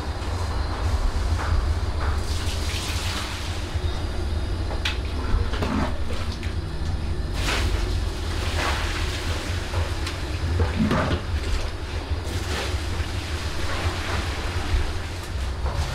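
Water boiling hard in a large copper pot, stirred with a long wooden-handled paddle that makes irregular splashes and knocks, over a steady low rumble.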